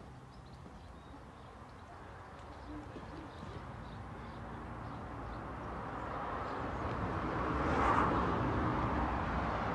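A passing vehicle's tyre and engine noise, swelling slowly and loudest near the end.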